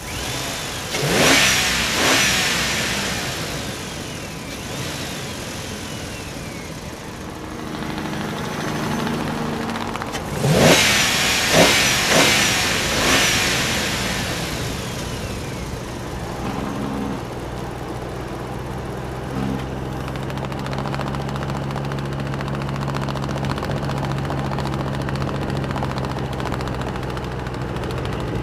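Engine-like vehicle sound: two loud sweeping rushes about a second in and again about ten seconds in, then a steady low engine hum from about the middle onward.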